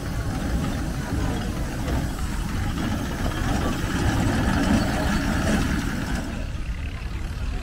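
Steam road roller running as it drives across grass, a steady low rumble with no distinct exhaust beat.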